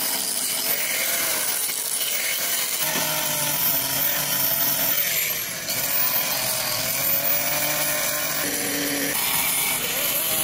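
Handheld electric angle grinder with an abrasive disc grinding the steel of a truck-trailer fifth wheel plate, running continuously under load, its motor pitch shifting a few times as it is worked.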